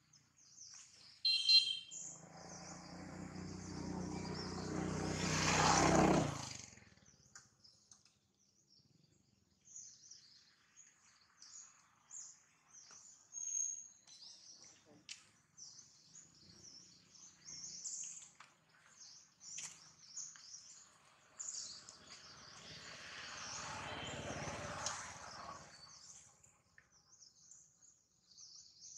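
Birds chirping high and continuously in the background. A short sharp call comes about a second and a half in, then a louder sound builds for about four seconds and cuts off suddenly, and a softer swell rises and fades near the end.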